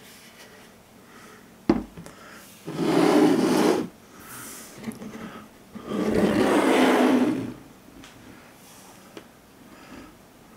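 A resin statue set down on a table with one sharp knock, then two scraping slides of a second or so each as statue bases are pushed across the tabletop.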